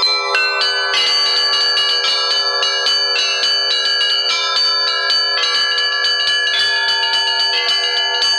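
Church bells rung in a fast, continuous peal: quick strikes on the smaller bells ring over the held tones of the larger ones, growing denser about a second in.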